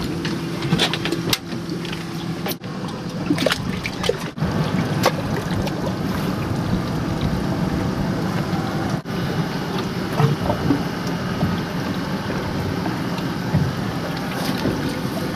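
Water lapping and trickling against a boat's hull with a faint low steady hum, scattered small knocks and clicks, and a few abrupt cuts in the sound.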